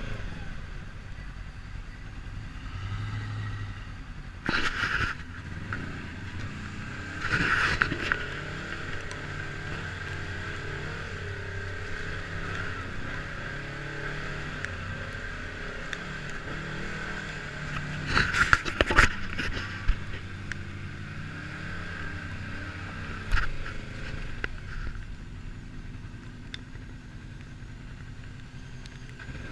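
Side-by-side UTV engine running steadily at low speed over a rough trail, with a few sudden knocks and rattles, the loudest cluster about two-thirds of the way in.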